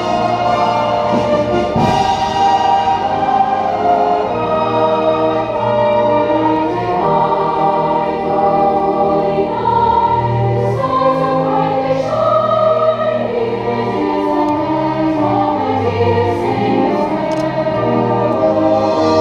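Large choir singing with a live orchestra, long held notes in several parts over the instruments.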